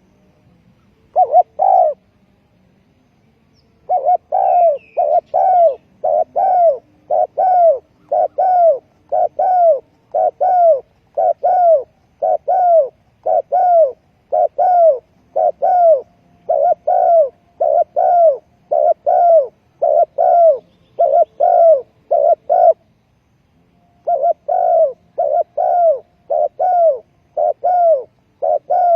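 Spotted dove cooing: a long run of short, arched coos in quick clusters, one brief group near the start, a steady string from about four seconds in, a short pause near the end, then cooing again.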